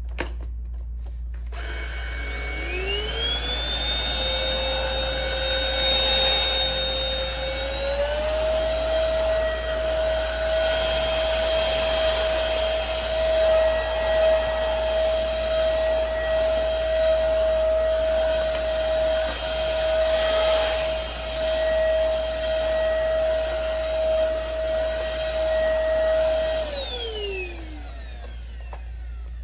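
DEVOAC N300 cordless stick vacuum switched on, its motor whining up to speed and stepping up to a higher pitch about eight seconds in. It runs steadily as it picks up debris from carpet, then is switched off near the end, its whine falling away.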